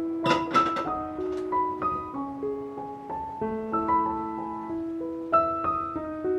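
Soft background piano music playing a slow melody. A few sharp clicks sound over it about half a second in and again about five seconds in.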